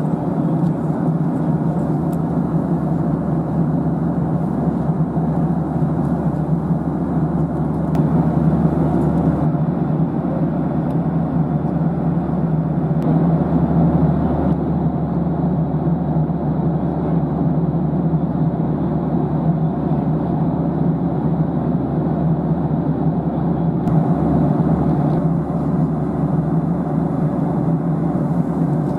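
Steady drone of a Boeing 737's engines and airflow heard inside the cabin in cruise, a low, even rumble with a hiss above it. The hiss thins about a third of the way in and comes back near the end.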